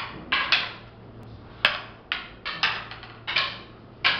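Wooden rattan fighting sticks clacking against each other in a fast sparring drill. About ten sharp clacks come at an uneven pace, some in quick pairs, each with a short ring.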